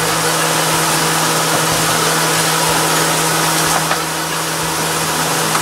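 RV kitchen ventilation fans running, a steady loud whir with an even low motor hum, with a couple of light knocks near the end.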